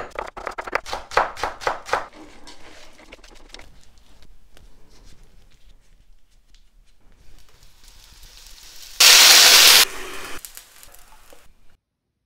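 Kitchen knife chopping cabbage on a wooden cutting board, fast rapid strokes at about six a second for the first two seconds, then fainter handling clicks. About nine seconds in there is a sudden loud hiss lasting under a second, trailing off into a fainter hiss before silence.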